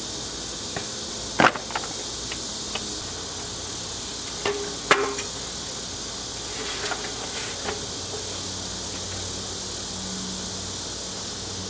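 Metal tools and parts knocking and clinking a few times over a steady hiss, with the sharpest knocks about a second and a half in and about five seconds in.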